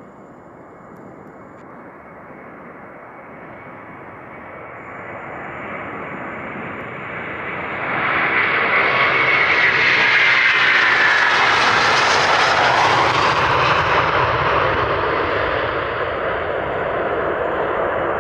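Airbus A330-300's twin Pratt & Whitney turbofans at take-off thrust, growing steadily louder as the airliner comes closer, then loudest from about 8 to 13 seconds in as it passes, with a whine that drops in pitch. A steady jet rumble follows as it moves away.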